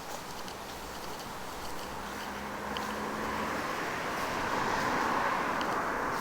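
A car approaching on a nearby road, its tyre and engine noise growing louder over several seconds, with a few short bird chirps over it.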